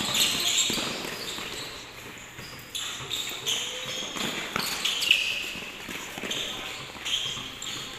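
Basketball sneakers squeaking and footfalls on the court as several players run and side-shuffle through a drill. The squeaks come as short, high chirps at irregular moments throughout.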